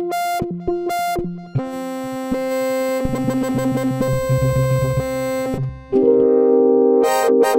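Expressive E Osmose 49 synthesizer keyboard being played. It starts with a few short separate notes, then a held chord over moving bass notes, then, about six seconds in, a louder chord with quick repeated notes over it.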